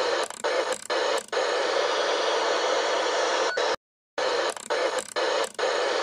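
Static hiss sound effect that stutters with several brief dropouts, cuts out completely for a moment a little before halfway, then resumes with more stutters.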